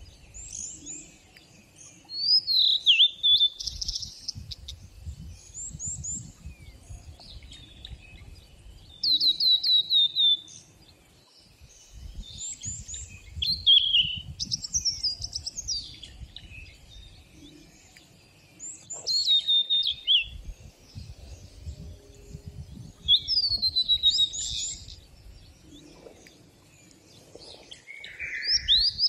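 Songbirds singing: short, bright phrases of quick, mostly falling whistled notes and chirps, a new phrase every few seconds, with a low, uneven rumble underneath.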